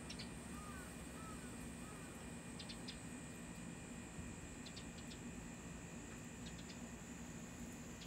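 Faint outdoor ambience: a steady low hum with short high chirps in clusters of two or three about every two seconds, and a few soft arching calls in the first couple of seconds.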